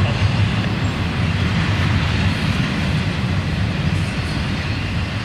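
Double-stack intermodal well cars of a freight train rolling past: a steady noise of steel wheels running on the rails.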